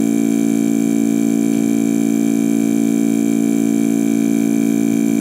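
VIAIR 300P portable 12-volt air compressor running with a steady, unchanging drone as it inflates a flat 37-inch mud-terrain tire.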